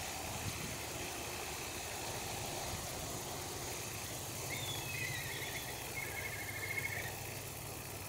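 Steady low rumble of distant road traffic, with a brief high, rapidly repeating trill about halfway through.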